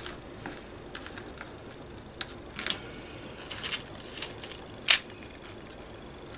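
Small scattered clicks and ticks of beads and wire being handled while beads are threaded onto a wire, with the sharpest click about five seconds in.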